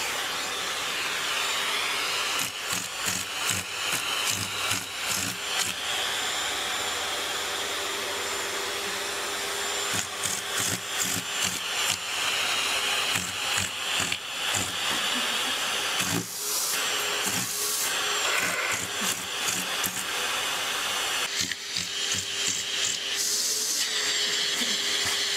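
Vacuum cleaner running steadily with its hose nozzle held against a cat's fur, a constant suction noise with a hum, broken by frequent short scuffs and knocks as the nozzle moves over the fur.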